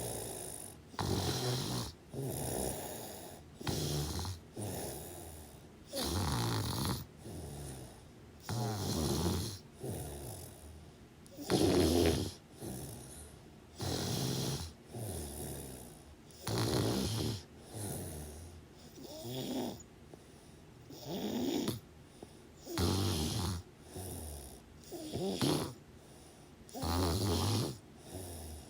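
Steady rhythmic snoring: a rasping snore roughly every second, some stronger than others, with short quiet breaths between.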